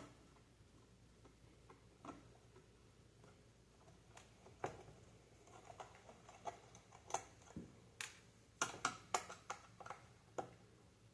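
Faint, scattered clicks and light taps of small tools and plastic console parts being handled during a teardown, sparse at first and coming thick and fast from about eight to ten seconds in.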